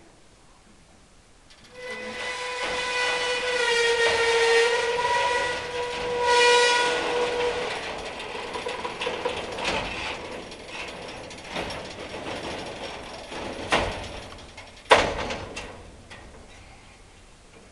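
A hinged steel lattice platform on a bee-hive trailer being hoisted upright by cable. A long, high metal-on-metal squeal runs for several seconds, then there is ratcheting, clanking and rattling, and a loud clang about fifteen seconds in as the frame comes up against the trailer.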